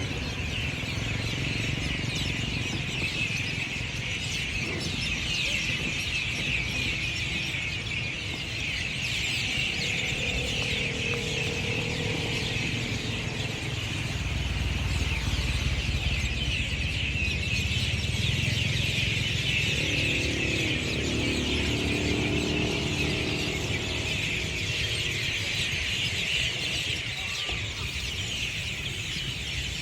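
Many small birds chirping and twittering together in a dense, unbroken chorus, with a low rumble underneath.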